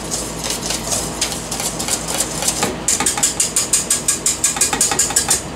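Wire whisk beating a liquid mixture against a stainless steel mixing bowl, scraping and clicking with a faint metallic ring. The strokes turn into a fast, even rhythm of about six a second partway through, then stop suddenly near the end.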